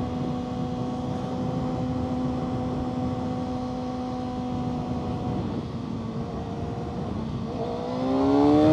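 Kawasaki ZX-6R 636 inline-four engine running steadily under way, easing off about five seconds in, then revving up quickly near the end as the throttle is opened for a power wheelie attempt.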